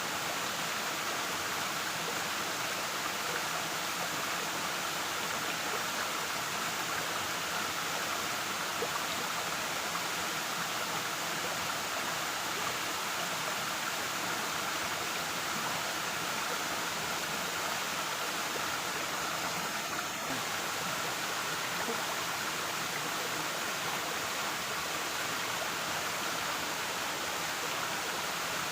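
Waterfall, water falling and rushing in a steady, unbroken hiss.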